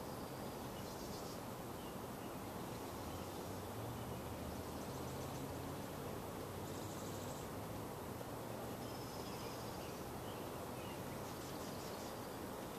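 Outdoor ambience: insects trilling in short bursts every few seconds, an occasional bird call, and a faint, steady low hum underneath.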